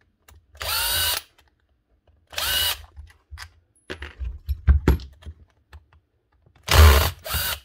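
Hikoki DV18DBXL brushless cordless drill run in short trigger bursts, its motor whirring up and down four times, the last two close together. A cluster of sharp knocks and clicks comes about halfway through. The drill's low gear slips because the gearbox housing is stripped.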